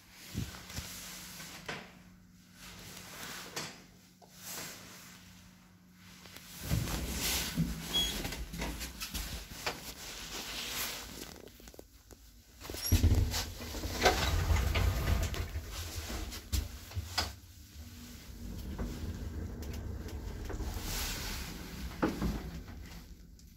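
KONE traction elevator (1950, modernised 2004) at work: a steady hum with scattered clicks, then after several seconds a low continuous running noise of the car travelling, loudest around the middle, with clicks and knocks of the doors and fittings along the way.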